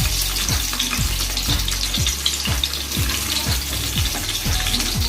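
Chicken pieces frying in hot oil in a kadai, a steady sizzle, with a soft beat of background music about twice a second underneath.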